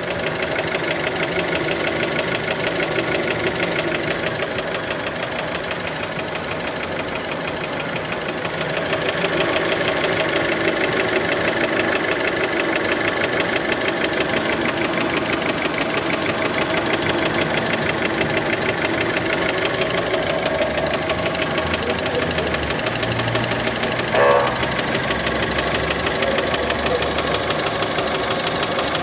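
A warmed-up Fiat Panda engine running with a steady rhythmic knock, which many take for piston slap from a worn piston skirt. Its level rises slightly about a third of the way through, and there is one brief louder sound near the end.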